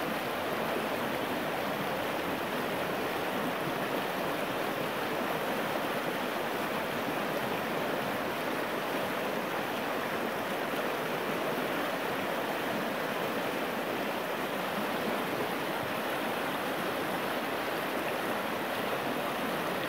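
Steady rush of a shallow river riffle running over a gravel bar.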